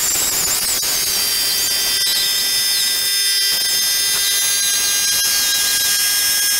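Pneumatic die grinder running with a small abrasive disc on the steel blade of an old buck saw: a steady air hiss under a high whine whose pitch wavers up and down.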